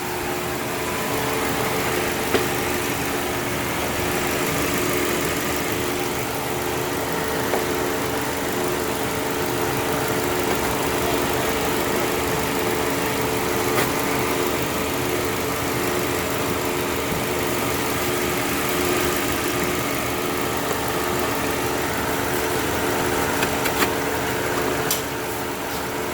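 2007 Saturn Ion's engine idling steadily with the air conditioning running, a constant hum with a few light clicks.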